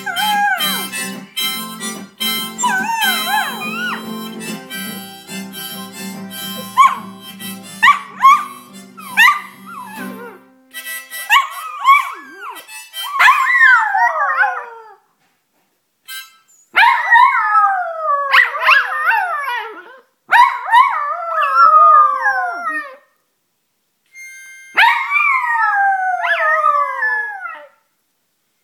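Two poodles howling along to an instrument playing steady chords. The instrument stops about ten seconds in, and the dogs go on alone in several long, overlapping howls that fall in pitch, with short pauses between.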